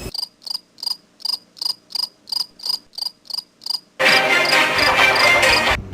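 Cricket chirping in short, evenly spaced chirps, about three a second, for about four seconds. Then a louder, denser noise takes over and stops abruptly near the end.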